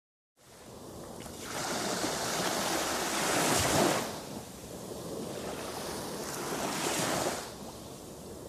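Ocean surf washing on a beach: a steady wash of water noise that swells and falls back twice, peaking about three and a half and seven seconds in.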